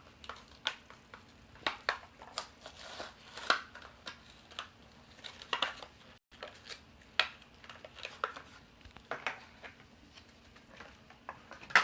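Hot Wheels blister pack being torn open by hand: irregular crackles, clicks and crinkles of the plastic bubble and cardboard backing card.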